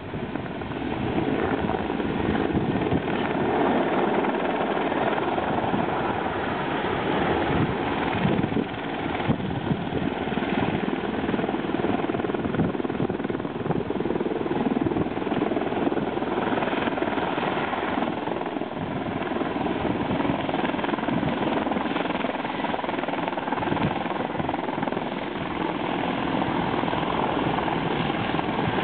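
Mi-24 attack helicopter in flight: a steady, fast beat of main-rotor blades over the rushing noise of its turbine engines.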